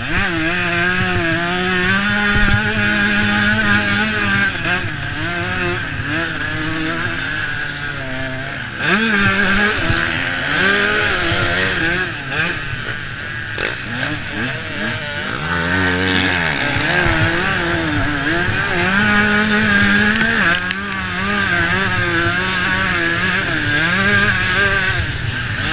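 Dirt bike engine revving up and down while being ridden, its pitch rising and falling over and over. About two-thirds of the way in it holds a steadier, lower note for a second or two, then picks up again.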